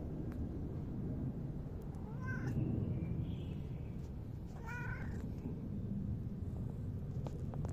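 Black tabby cat meowing twice, short meows about two and a half seconds apart, with a fainter call between them, over a steady low rumble.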